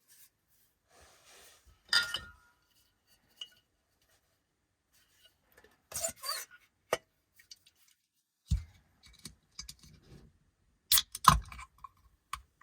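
Dishes and utensils handled in a small enclosed space: scattered clinks and clatters, a dull thump about eight and a half seconds in, and two sharp clanks near the end.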